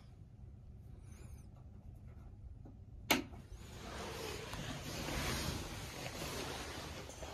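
A single sharp click from the capsule's wall control-panel switch about three seconds in, as the cabin light goes off. It is followed by a soft rushing noise that swells and eases for about four seconds.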